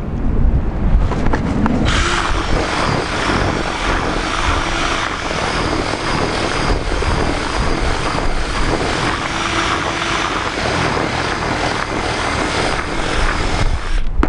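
Cordless drill with a whisk attachment running, churning damp groundbait in a plastic bucket as it is mixed with water; it starts about two seconds in and stops near the end. Wind rumbles on the microphone throughout.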